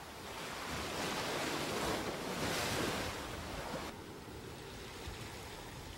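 Sea surf breaking and washing over a rocky shore: a wave surges in and foams around the rocks, swelling about half a second in, loudest near the middle, then easing off after about four seconds.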